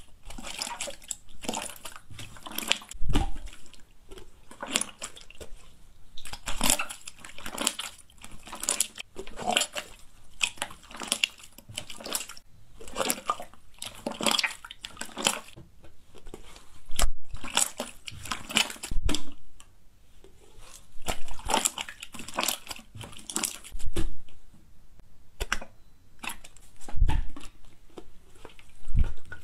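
Hands squishing and stretching a large sheet of white slime: irregular wet squelching and crackling, with a few deeper pops as air trapped under the slime is pressed out.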